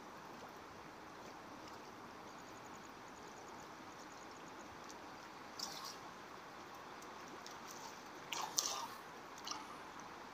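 Steady flowing river water, with a few short splashy sounds about halfway in and again near the end.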